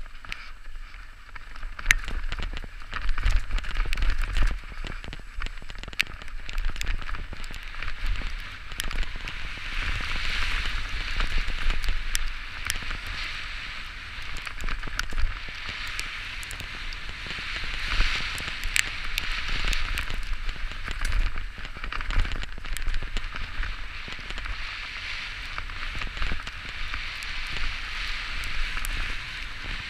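Santa Cruz Bronson mountain bike descending a wet dirt trail: the tyres hiss through the wet ground, swelling and fading with speed, with many small clicks and rattles from the bike and the trail over a low rumble.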